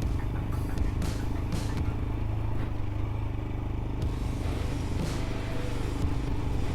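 Royal Enfield Himalayan's single-cylinder engine running steadily at low speed while the motorcycle rides over a rocky trail, with a few short knocks and clatter along the way.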